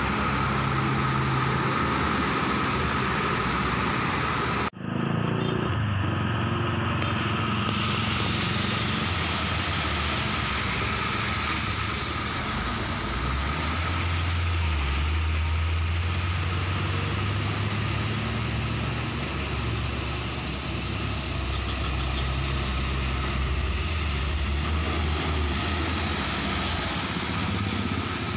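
Heavy diesel coal-hauling trucks running on a haul road: first a tractor unit pulling a side-dump trailer, its engine running steadily; then, after a sudden cut about five seconds in, dump trucks driving past with a steady low engine rumble, a coal-laden dump truck passing close near the end.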